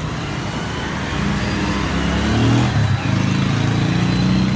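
Motor vehicle engine running close by, rising in pitch as it speeds up about two seconds in and staying louder after, over street traffic.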